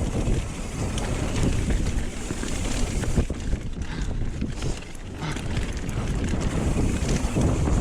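Wind buffeting the microphone over a mountain bike riding along a dirt trail: a low rumble of tyres and wind, with scattered small clicks and knocks from the bike. It dips briefly about five seconds in.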